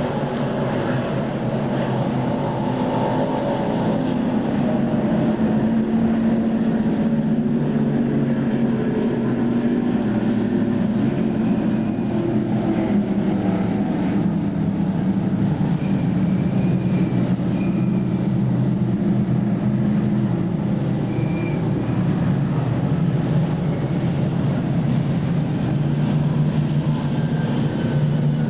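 Dirt modified race cars' V8 engines droning steadily as a pack circles the track, the pitch slowly rising and falling.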